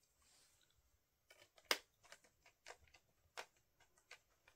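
Faint, irregular clicks and ticks of a small screwdriver driving a retaining screw into a laptop's plastic screen bezel, with one sharper click a little under two seconds in.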